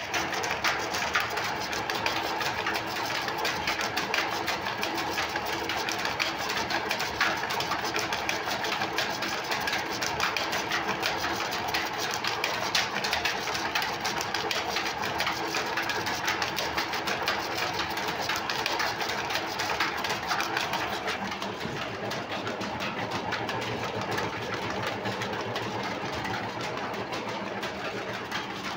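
Sardar 32-bar oil expeller running steadily under load, pressing oilseed, with a dense, rapid mechanical clatter of fast even ticks over a steady hum.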